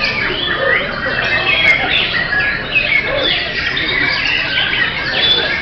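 Several white-rumped shamas (murai batu) singing at once: a dense, loud chorus of overlapping whistled phrases, rapid glides and trills with no pauses.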